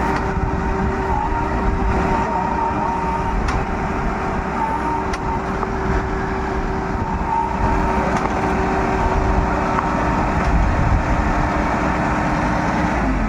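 Combine harvester's diesel engine running steadily under load with a constant whine, while it winches a stuck drilling machine out.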